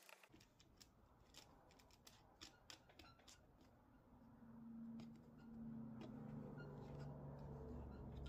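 Faint clicks and taps of hands handling an MDF sanding jig and turning wing nuts onto its bolts. A low steady hum comes in about halfway through.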